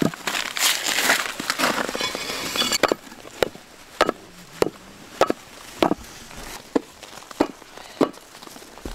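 Meat cleaver chopping frozen meat on a frozen chopping block. First comes a dense stretch of hacking and crunching lasting about three seconds, then single sharp chops at a steady pace, a bit under two a second.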